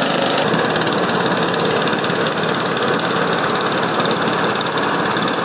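Steady, loud aircraft engine noise: an even rush with faint high whining tones, changing slightly about half a second in.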